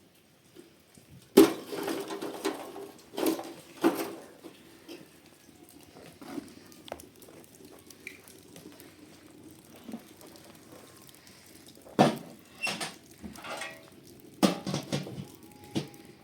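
Knocks and clatter of hard objects being handled, with sharp strikes about a second and a half in, twice around four seconds, and a cluster from about twelve seconds on, and quieter rustling between.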